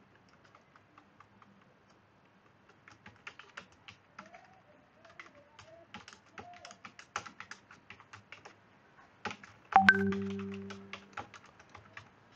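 Typing on a computer keyboard: irregular runs of key clicks as a line of code is entered. Near the end a louder brief low hum starts suddenly and fades out over about a second.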